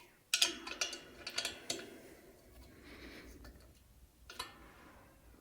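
Open-end spanner and Allen key clicking against an M8 bolt and nut as the bolt is tightened: a quick run of sharp clicks in the first two seconds, then a few fainter ones and one more click later.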